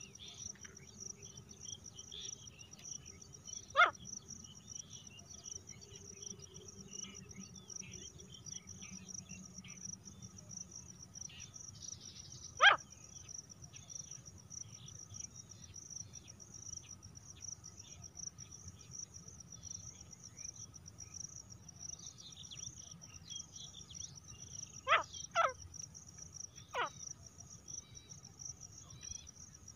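Caged female grey francolin giving short, sharp single calls: one a few seconds in, one near the middle, then a quick pair and one more near the end. Crickets trill steadily and high-pitched throughout.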